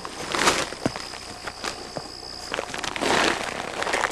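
Dry brush and leaves rustling and crackling close to the microphone, loudest in two spells about half a second and three seconds in.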